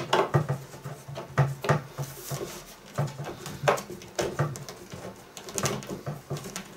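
A hand screwdriver driving screws into the wooden roof panel of a wooden cabinet, making a run of short, irregular creaks, clicks and knocks.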